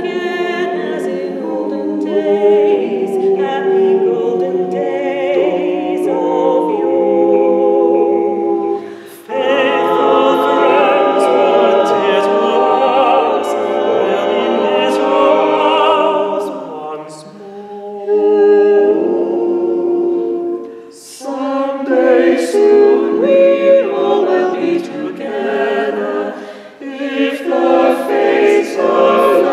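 Small mixed choir singing a cappella in close harmony, men's and women's voices together, with short breaks between phrases.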